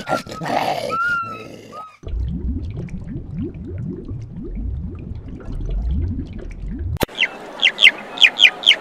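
Short grunts, then about five seconds of low gurgling water with repeated rising bubble notes. About seven and a half seconds in, a plains zebra starts barking: a rapid, loud series of yelping calls, about three a second.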